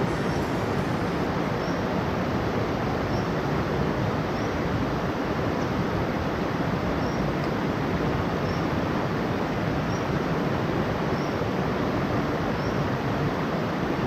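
Mountain stream water rushing steadily over rocks. A faint, short high chirp repeats about every second and a half.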